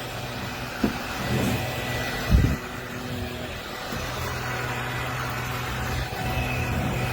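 Bissell PowerClean 200W cordless stick vacuum running steadily, with two short knocks about one and two and a half seconds in as it is pushed around.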